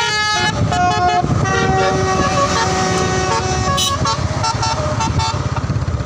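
Telolet basuri musical bus horn playing a quick tune of stepped notes, several tones sounding together, thinning to a few short toots and stopping about five seconds in. The bus's engine runs beneath, plainer near the end.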